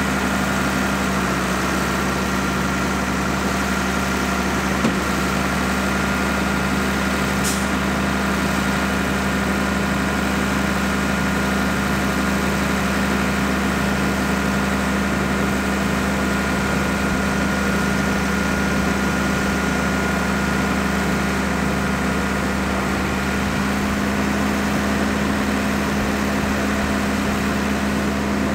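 Nissan UD2000 tow truck's diesel engine idling steadily, with a thin steady whine above the engine hum while the Jerr-Dan rollback bed's hydraulics lower the bed; the whine fades near the end.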